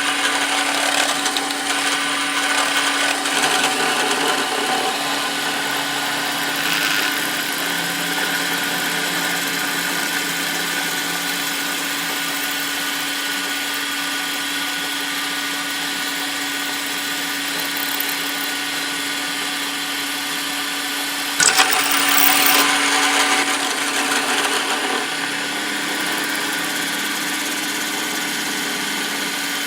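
Drill press running steadily, drilling out the soft-metal rivets that hold a replaceable sprocket nose on a chainsaw guide bar. A sharp click about 21 seconds in, then the sound is louder for a few seconds before settling back.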